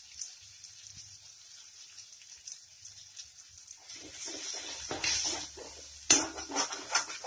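Spice masala sizzling faintly in a pan, then a spatula stirring and scraping through the thick paste from about four seconds in, with a sharp knock of the spatula on the pan about six seconds in.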